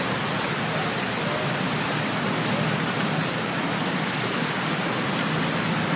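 Fontaine Saint-Michel's water falling into its basin, a steady even rush.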